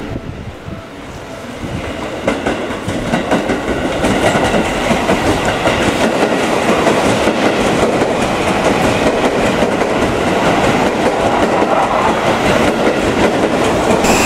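Seibu 20000 series electric commuter train approaching and running past close by, its wheels clattering over rail joints and points. It grows louder over the first four seconds, then holds steady and loud as the cars go by.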